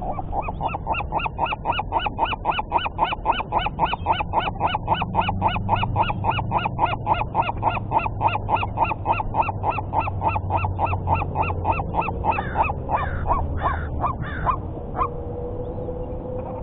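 A bird calling in a long, rapid run of evenly spaced calls, about four a second, then breaking into a few slower, irregular calls near the end.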